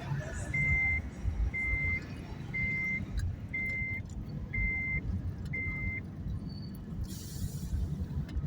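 A vehicle's electronic warning beeper sounding six times, about once a second, each beep short and at one pitch, over the low rumble of an engine. A brief hiss follows near the end.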